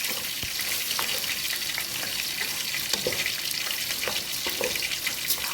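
Rice frying in hot oil in a pot with a steady sizzle while it is stirred, the spoon giving light clicks against the pot about once a second.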